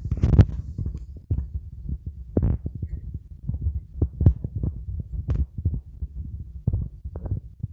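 Irregular low thumps and rumble close on the microphone, a few to several a second, with a few sharper clicks. This is typical of handling or wind buffeting on the microphone.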